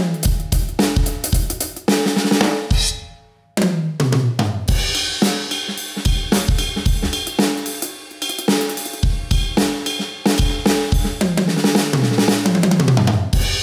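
Medeli MZ928 electronic drum kit played with sticks, its "Collector" preset sounding through the drum module: a steady groove of kick, snare, hi-hat and cymbals. It breaks off briefly about three seconds in and is twice broken by tom fills that run down from high to low toms.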